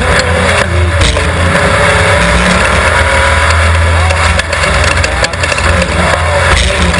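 Off-road race car's engine running loudly at speed, with scattered knocks and rattles.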